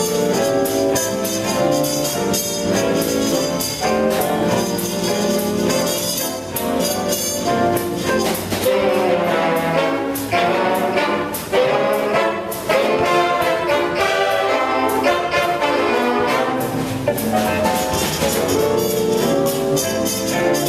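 Jazz big band playing, with trumpets and saxophones sounding together in full ensemble.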